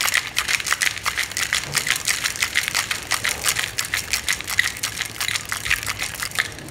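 Ice cubes rattling and clacking inside a stainless-steel cocktail shaker shaken hard up and down, a rapid even run of sharp knocks several times a second, with the ice breaking up as it hits the ends; the shaking stops near the end.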